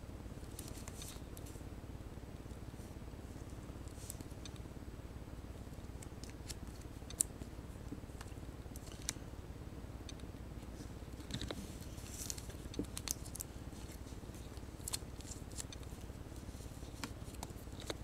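Trading cards in plastic sleeves and toploaders being sorted by hand: scattered faint clicks and slides of plastic on card, over a low steady hum.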